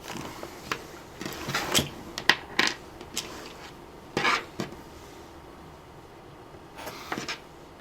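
Scattered sharp clicks and snips of small hand tools working thin wire, with one slightly longer, stronger event about four seconds in: the two leads of a laptop power jack being cut to one long and one short length.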